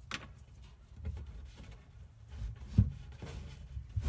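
Handling noises in a battery compartment: a light click, then dull knocks and low thumps as a plywood cover plate and battery cables are moved into place, the loudest thump about three seconds in.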